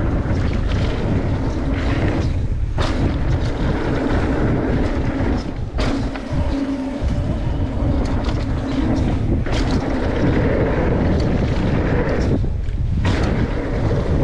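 Mountain bike riding down a rough freeride trail: a steady rumble of tyres on dirt with the bike rattling over bumps, and wind rushing over the helmet camera's microphone. The noise dips briefly a few times.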